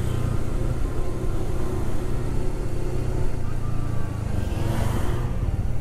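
Honda CB150X motorcycle's single-cylinder engine running steadily while riding, with wind and road noise; a brief swell of hiss about five seconds in.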